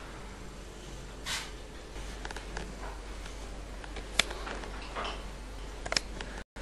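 Quiet room tone with a steady low hum, broken by a few short breathy hisses and scattered faint clicks. There is one sharper click about four seconds in and a small cluster of clicks near the end.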